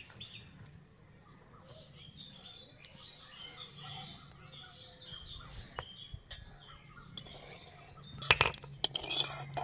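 Birds chirping in the background, then a metal spatula scraping and clinking against a metal wok of heating mustard oil near the end, the loudest sound.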